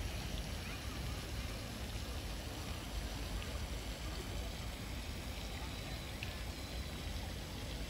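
Steady outdoor ambient noise by a pond: a low rumble under an even hiss, with no clear single event.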